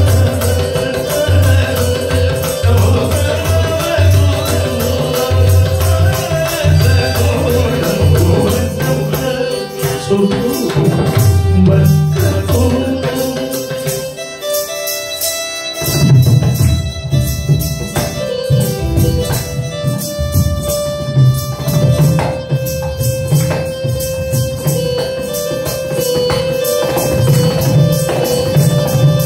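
Live Indian devotional music: a keyboard holds sustained notes over a tabla and drum rhythm, with a steady jingle of small percussion on top. The drums drop out briefly about halfway through, then come back in.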